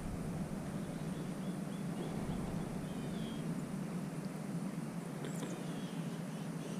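Steady outdoor background noise with a low hum, and a few faint, short bird chirps over it.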